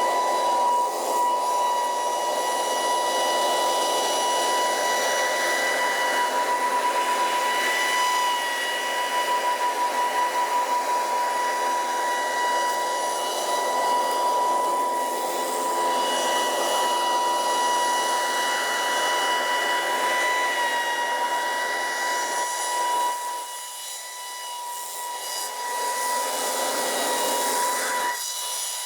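2019 Scag Windstorm stand-on leaf blower running, a steady high whine from its fan over a rush of air. It eases off about two-thirds of the way through, picks back up, and falls off again near the end.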